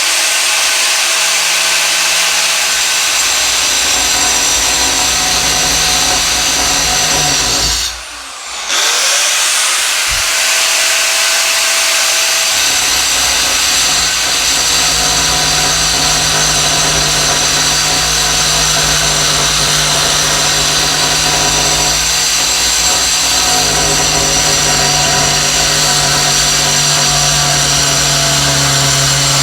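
Angle grinder running and cutting into an endplate. About eight seconds in, the motor briefly winds down and then comes back up to speed.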